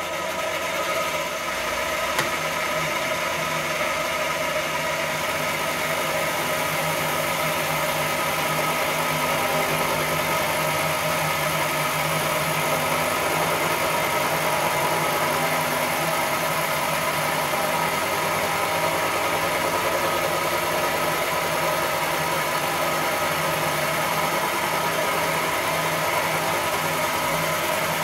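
Vertical turret mill's face mill cutting across the face of a cast iron BMC A-series cylinder head: a steady machining noise with several fixed tones from the spindle and cutter. It builds over the first second and then holds even. This is the roughing pass taking about 30 thou off the head face.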